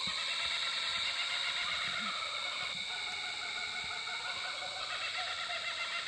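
Chorus of many frogs calling together, a dense, steady pulsing trill, of frogs just come out for the season.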